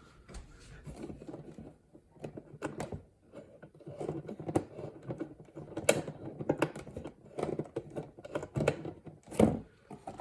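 Irregular clicks and crackle with faint broken fragments of broadcast sound from a 1960s Philco clock radio as its AM dial is turned between stations.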